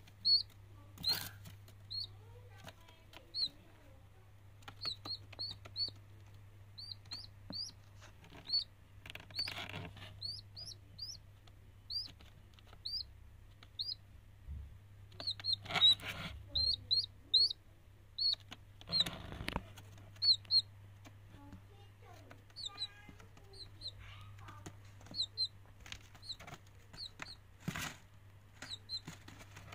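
A downy chick peeping: short, high, upward-flicking notes, often in quick runs of two to four, repeated throughout. A few brief fluttering scuffles come from its wings and feet against the styrofoam box, one near the end.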